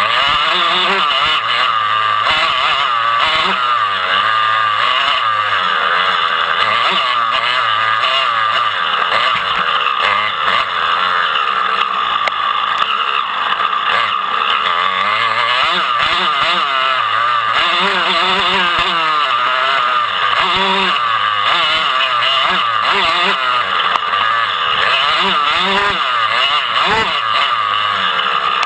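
Motocross dirt bike engines racing, revving up and down continuously with their pitch rising and falling.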